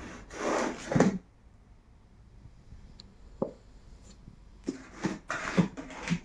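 Scratching and rustling on a cardboard TV box, in short bursts, with a quiet stretch broken by a single knock in the middle.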